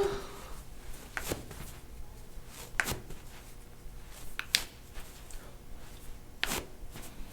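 Movement and handling noises: soft rustling with about half a dozen brief clicks and knocks spread through.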